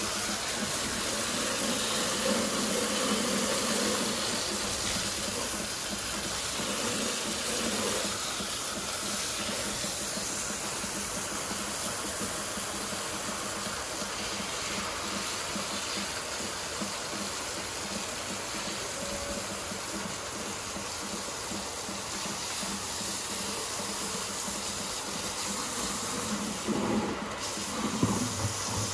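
Water jetting from a garden hose onto a motorcycle and wet concrete, a steady hiss of spray; near the end the stream runs into a plastic bucket.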